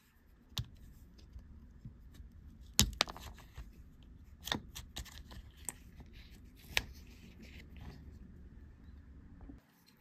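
Scattered light clicks and taps from fingers handling metal snap hardware on a leather jacket, the sharpest about three seconds in.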